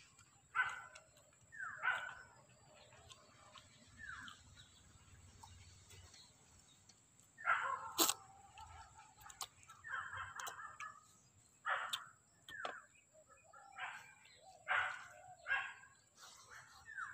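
Repeated short animal calls, each falling in pitch, coming singly and in pairs, with a sharp click about eight seconds in.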